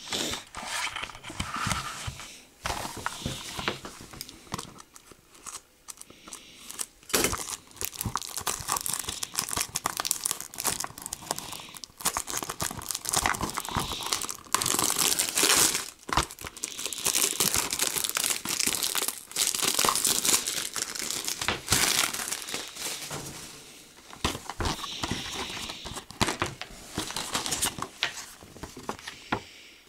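Plastic shrink wrap crinkling and tearing as it is cut and peeled off a DVD case, with scattered sharp clicks from the plastic case being handled.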